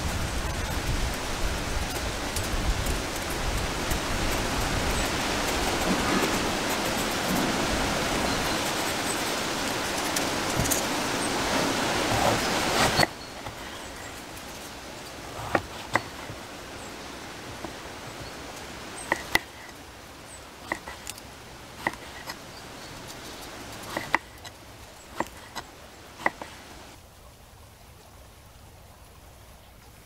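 A steady loud rushing hiss for the first thirteen seconds, which cuts off abruptly. Then a kitchen knife slicing an eggplant on a wooden cutting board, with about a dozen sharp, irregular clicks as the blade meets the board.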